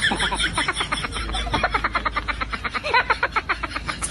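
Rapid, high-pitched laughter in quick, even pulses of about eight or nine a second, like a sped-up laugh sound effect.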